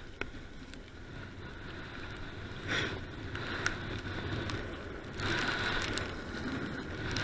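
Mountain bike descending fast on a loose dirt trail: a continuous rush of tyres rolling over dirt and gravel, with scattered clicks and rattles from the bike. The rush swells briefly about three seconds in and again louder from about five seconds in.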